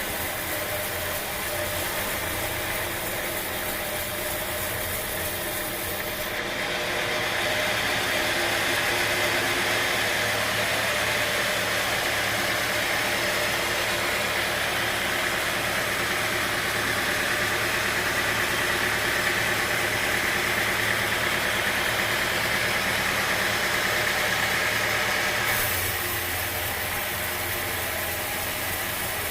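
Sawmill machinery running, a steady mechanical drone. It gets louder and hissier from about six seconds in and drops back near the end.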